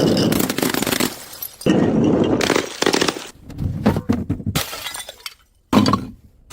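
Glass bottles breaking and shattering, several crashes in a row. A long crash opens, another follows under two seconds in, then a cluster of sharp smashes, and after a brief silence one more short smash near the end.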